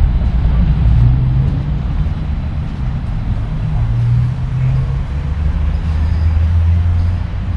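Street traffic: a motor vehicle's engine running close by with a steady low rumble whose pitch shifts a little.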